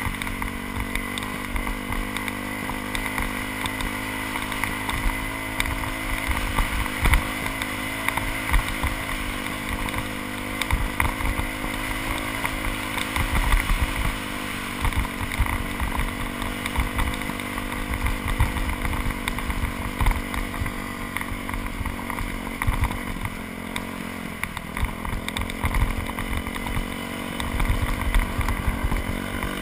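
2001 Yamaha YZ426F four-stroke single-cylinder dirt bike engine running at a fairly steady throttle, heard through a helmet-mounted camera. About 24 seconds in the revs dip briefly and pick up again, and low thumps sound on the microphone throughout.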